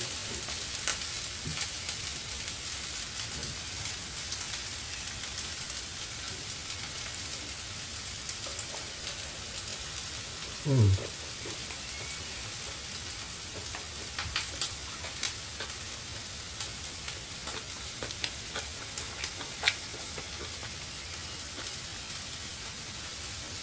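Spam and egg fried rice sizzling steadily in hot pans, with scattered light clicks of utensils against the pans and dish. There is a brief low voiced hum about eleven seconds in.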